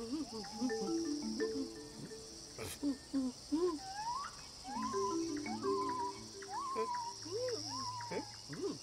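Jungle ambience: a steady insect chirring with scattered short gliding calls, over soft held music notes.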